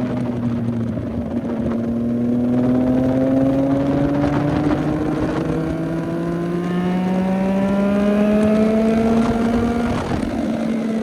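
CFMOTO 675NK's 675 cc inline-three engine pulling under steady throttle, its revs climbing slowly and evenly, then dropping a little near the end.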